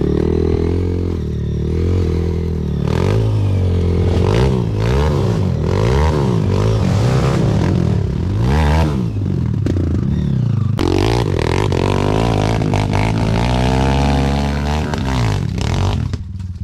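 Kawasaki KLX140G dirt bike's single-cylinder four-stroke engine revving up and down again and again, with a few knocks and rattles in between.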